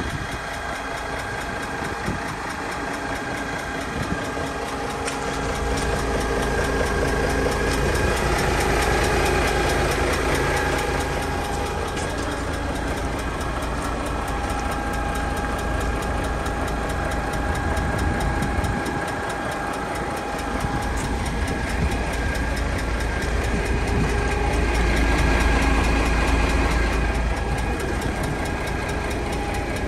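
DAF XF106 tractor unit's 12.9-litre PACCAR MX-13 straight-six diesel idling steadily, with a low rumble that swells and eases.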